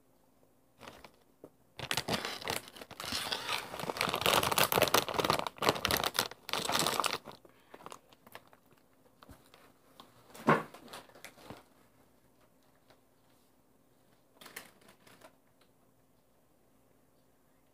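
Plastic snack-chip bag crinkling loudly as it is handled and crumpled for about five seconds, followed by a single sharp knock and a few faint rustles.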